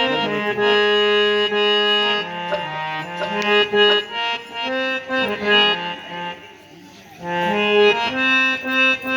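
Harmonium playing a melody in long held notes, briefly falling quiet about two-thirds of the way through before resuming.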